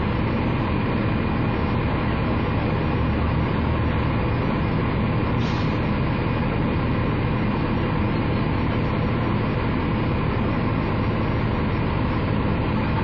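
Diesel engine of a KMB ADS-class tri-axle double-decker bus idling steadily while the bus stands, with a brief faint hiss about five seconds in.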